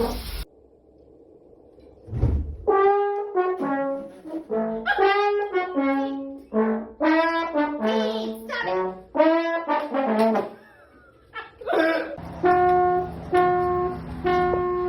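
Brass instrument playing quick phrases of short notes, then a pause, then a string of short repeated notes on one pitch near the end.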